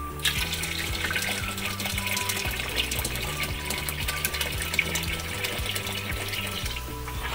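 Water pouring from a jug in a steady stream into a pot of yogurt and gram-flour kadhi batter. It starts just after the beginning and stops shortly before the end. Background music plays underneath.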